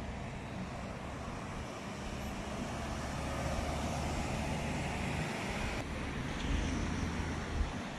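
A pickup truck drives past close by: engine and tyre noise swells and then falls away, over a low rumble of road traffic and wind on the microphone.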